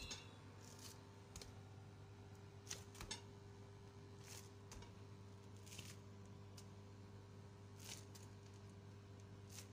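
Near silence: room tone with a low steady hum and a few faint, scattered clicks and soft rustles.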